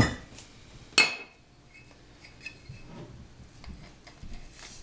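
Metal measuring spoons clinking against a measuring cup: two sharp clinks with a short ring, about a second apart, then a few faint light clinks and rattles.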